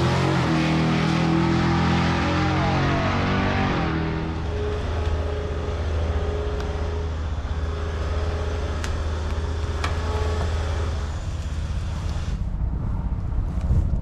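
A motor vehicle's engine running, with its pitch rising and falling for the first few seconds, then settling into a steady low drone; there are a couple of sharp clicks near the middle.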